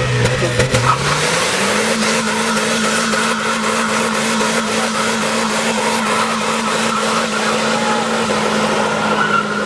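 Car engine in a burnout: the revs climb steeply a second or so in and are then held high and steady while the spinning tyres squeal with a steady hiss.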